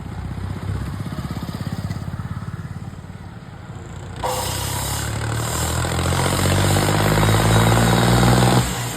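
Tractor diesel engine running with an even firing beat. About four seconds in it turns suddenly louder, then its pitch climbs steadily as it revs up, and it drops back shortly before the end.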